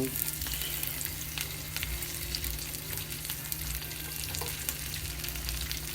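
Egg-white omelet sizzling and crackling in olive oil in a frying pan over medium heat, just after being turned.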